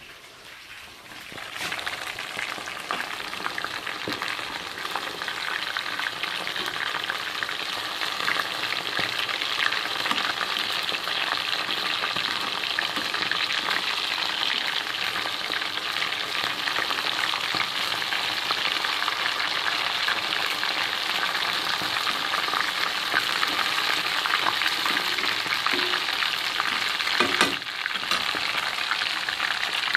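Marinated chicken pieces frying in hot oil in a pan: a steady sizzle that starts about a second and a half in and keeps going, with a short dip and a clink near the end.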